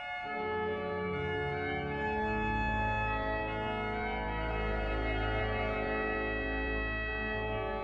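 Organ music: long held chords that change just after the start, with a deep bass note entering about two seconds in and sustaining under them.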